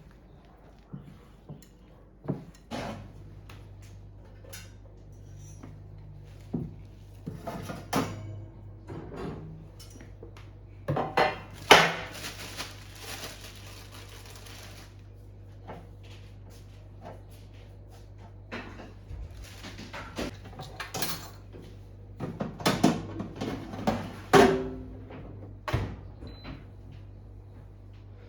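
Kitchen clatter of utensils and dishes: scattered clinks and knocks, with a steady low hum starting about three seconds in and a few seconds of hissing noise about twelve seconds in.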